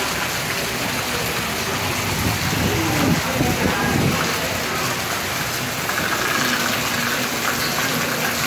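Heavy rain falling steadily on the street and rooftops, a dense, even hiss.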